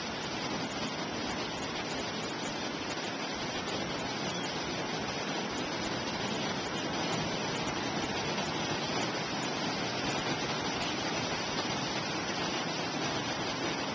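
Atlantic surf breaking on the beach below, heard as a steady, even rush of noise.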